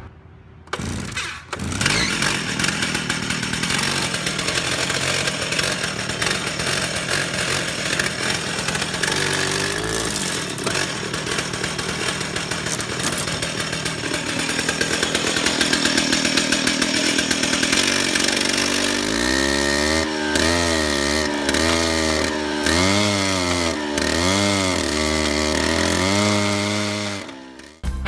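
Alpine stump grinder, its small two-stroke chainsaw-type engine driving a cutter wheel, started up and run at high speed while it grinds out a tree stump. In the last third the engine note rises and falls over and over as the cutter is swept back and forth across the stump, and it dies away just before the end.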